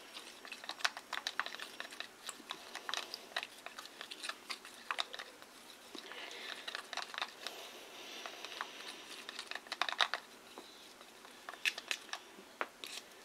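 A stir stick clicking and scraping against the sides of a plastic tub as glue and water are stirred: many light, irregular ticks, with a stretch of steadier scraping in the middle.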